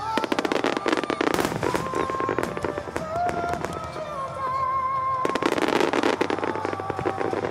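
Rapid aerial firework bursts and crackling, thinning briefly in the middle and then returning as a dense volley. Recorded music with a sustained, gliding melody plays loudly over loudspeakers underneath.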